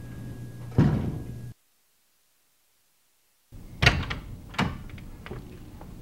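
Door sounds: one loud thud about a second in, then dead silence for about two seconds, then a few sharp clicks and knocks of a door being worked.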